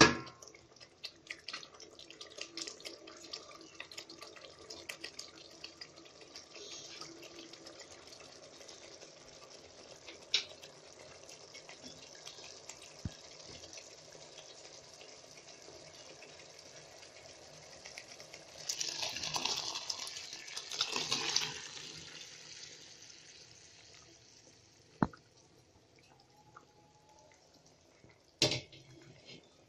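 Masala gravy simmering in a pan with small crackling pops. About two-thirds of the way through, liquid is poured in with a louder splashing rush lasting a few seconds. A few sharp clicks and a thump near the end come from utensils against the pan.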